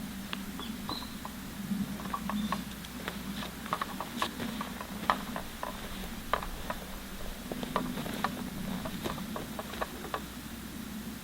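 Irregular light clicks and taps, dozens of them with no steady rhythm, over a low steady hum.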